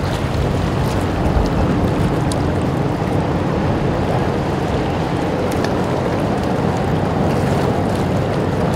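Steady low rumble of a large ro-ro ferry's engines and propeller wash as it manoeuvres in to berth, mixed with wind noise on the microphone.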